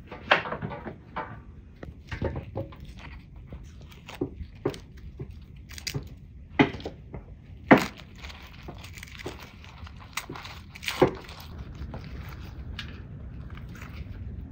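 Kitchen knife cutting red onion on a cutting board: irregular knocks and scrapes, the sharpest about halfway through and again near the two-thirds mark, with a crinkle of onion skins being peeled, over a low steady rumble.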